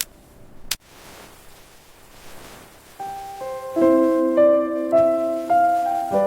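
Gentle piano music, its notes coming in about three seconds in after a faint hiss and a single sharp click.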